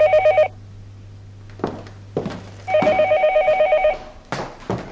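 Telephone ringing with an electronic warbling trill that comes in bursts a little over a second long, repeating every few seconds. A few short knocks sound between the rings.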